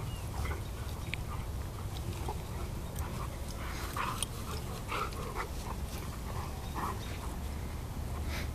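Two Greater Swiss Mountain Dogs play-wrestling, making short, scattered vocal sounds, more of them in the second half.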